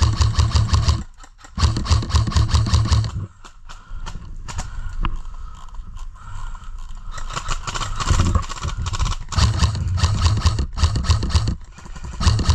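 Airsoft guns firing rapid full-auto bursts. A long burst comes at the start and another about two seconds in, then a few scattered shots, then sustained bursts from about halfway through to the end.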